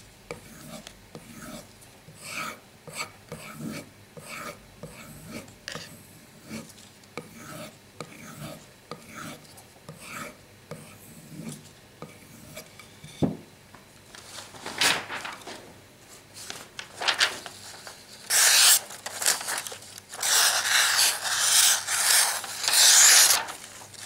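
Knife blade being stropped on a leather strop loaded with polishing compound: soft, even scraping strokes at about two a second. In the second half come louder, scratchier strokes.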